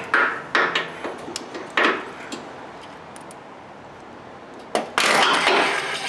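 A few sharp knocks in the first two seconds, then near the end about a second of loud noise as the 2006 Ford Expedition's starter motor briefly cranks the 5.4 engine and stops. It turns only about half a revolution, the sign of a starter that has burnt up inside.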